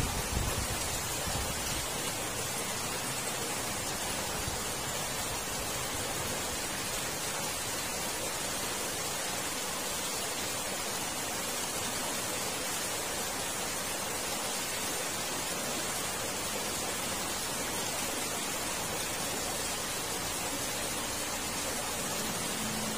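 Steady rushing of water flowing through a concrete culvert, an even hiss with no breaks.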